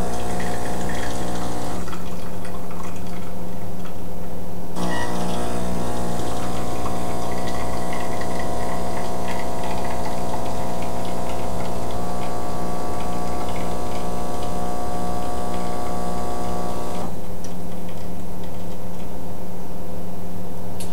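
DeLonghi EC860 espresso machine's vibratory pump humming steadily as it pushes water through the portafilter and a shot pours into the glass. Its tone shifts slightly about two and five seconds in and again near the end. This is the first shot after switch-on: the shot volume is not yet programmed, so the pump keeps running for as long as the brew button is held.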